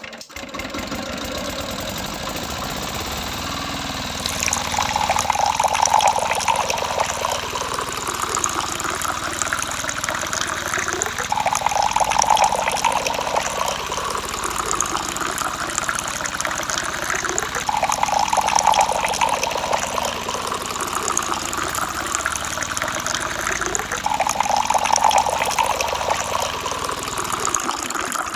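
Water pumped by a toy tractor's small pump, gushing and splashing, over a steady motor hum. The rush swells about every six seconds.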